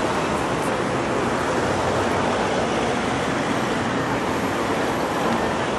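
Steady, even rushing background noise with no distinct events, like outdoor traffic or wind noise.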